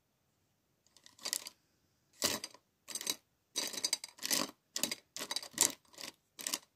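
Short, irregular rustles and clicks of handling close to the microphone, starting about a second in and coming about twice a second.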